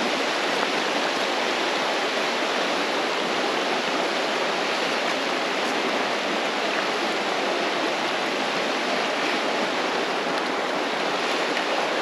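Shallow rocky creek running over stones: a steady, even rush of water.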